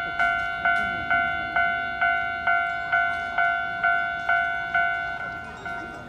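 Railway level-crossing warning bell ringing steadily, about two strikes a second, each a two-tone clang that fades before the next. It gets quieter about five seconds in.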